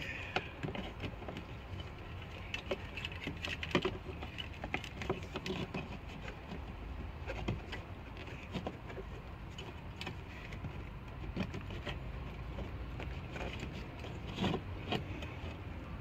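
Sheet-metal radio mounting sleeve clicking and rattling by hand as it is pushed into the cutout of a fiberglass panel, with scattered light knocks and scrapes over a steady low rumble.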